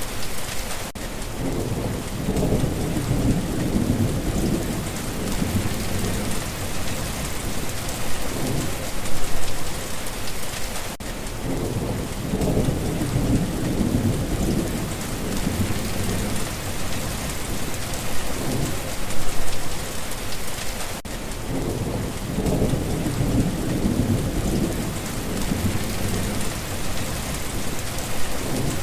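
Steady rain falling, with low rumbles of thunder that swell and fade. The same rumble pattern recurs about every ten seconds.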